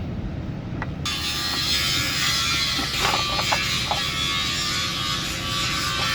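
Mercedes-Benz Actros MP2 truck's diesel engine giving a steady, buzzy drone, with a few short clicks about three to four seconds in.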